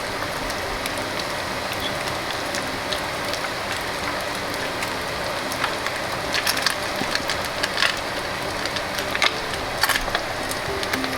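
Battered speckled trout pieces deep-frying in hot oil: a steady sizzle with crackling pops that come thicker after about six seconds.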